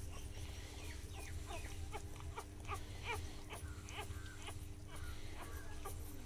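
Newborn puppies squeaking as they nurse at their mother: a string of short, high squeaks, each falling in pitch, several a second, over a low steady hum.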